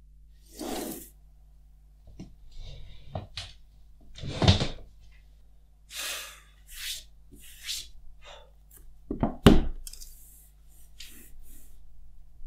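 Hands handling a phone box on a desk: a run of short rustles and swishes, with a thump about four and a half seconds in and a louder double knock about nine and a half seconds in.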